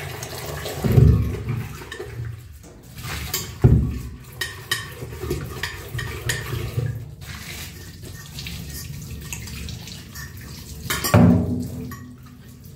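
Kitchen tap running into a steel sink while dishes are washed by hand, with clinks and knocks of steel utensils and pots. Three heavier knocks come about a second in, near four seconds and near the end.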